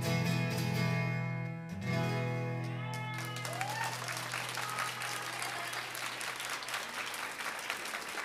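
Acoustic guitars strum a final chord, strike it again, and let it ring out; from about three seconds in, an audience applauds.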